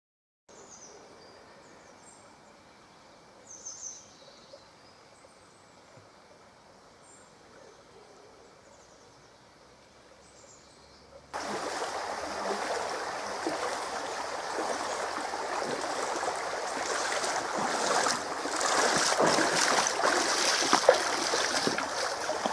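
A few short, high, thin bird calls over quiet background. About eleven seconds in, this gives way abruptly to the much louder, steady rush of a shallow stream flowing over riffles.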